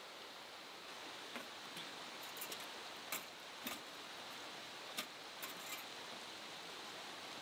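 About ten short, sharp clicks and clinks in small clusters, like small hard objects being handled, over a steady hiss.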